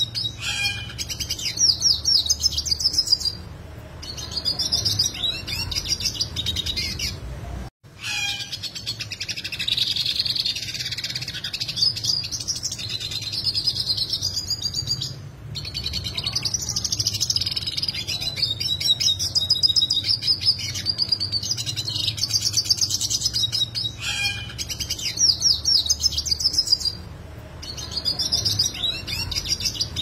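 Yellow siskin singing a long, fast, complex twittering song full of rapid sharp trills, broken by a few short pauses. The sound cuts out completely for a moment about eight seconds in, and a steady low hum runs underneath.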